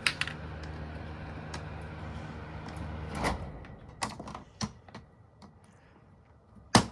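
Panasonic ventilation fan running with a steady hum; about three seconds in there is a click and the hum winds down over about a second. Then a few sharp clicks, the loudest near the end.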